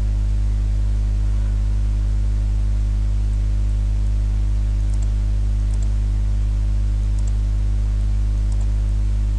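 Steady electrical mains hum, a low buzz with several overtones at even steps, with a few faint clicks from a computer mouse in the second half.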